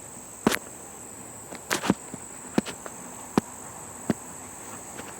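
A handful of sharp, separate clicks and knocks at irregular intervals, the kind made by handling tools and parts, over a steady high-pitched whine. The air hammer is not running.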